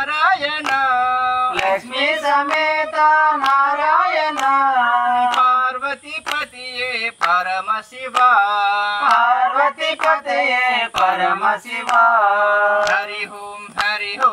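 A small group of men and a woman singing a Telugu group song (brunda ganam) in unison, with hand claps keeping time.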